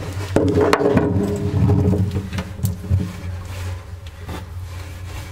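Handling noises while lubricant is applied to a jet ski's driveshaft bore and rubbed in by hand: several sharp clicks and light scraping over a steady low hum that fades after about two seconds.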